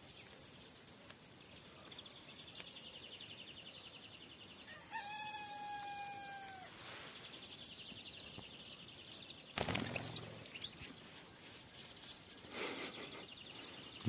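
Small songbirds twittering high and thin, with a trill twice and one long steady call about five seconds in. A short noisy burst comes about two-thirds of the way through.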